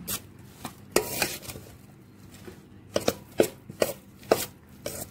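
Steel spoon knocking and scraping against a stainless steel bowl while stirring a thick, damp flour-and-spice coating through baby corn pieces. The clinks come irregularly, thickest from about three seconds in.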